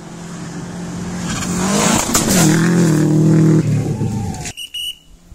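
Rally car at full throttle on a gravel stage: the engine note climbs as it approaches, peaks with a burst of noise as it passes about two seconds in, then holds high revs while pulling away. The sound cuts off abruptly about four and a half seconds in.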